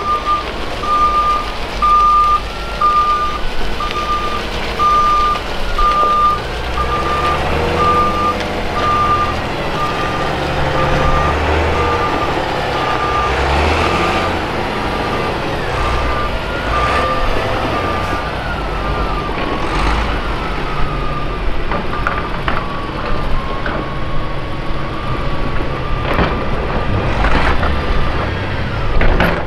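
Heavy diesel construction machinery working: a reversing alarm beeps steadily in an even series, over engines that rise and fall under load from a few seconds in. Several sharp knocks come in the second half.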